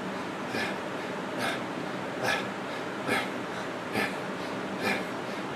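A man's rhythmic breathing during dumbbell wrist curls: a short, sharp breath through the nose about every second, keeping time with each rep, six in all.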